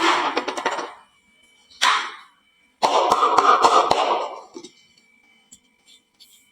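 Marbles clattering down a wooden marble-run slope, in three rattling bursts of many quick clicks, the third the longest at about two seconds.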